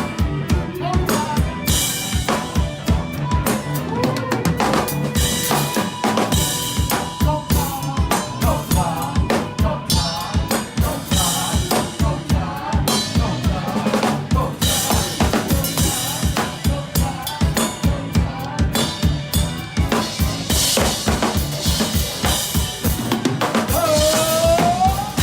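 Live rock band playing a song, with the drum kit loud in front: a steady kick-drum beat, snare hits and repeated cymbal crashes over bass and other instruments.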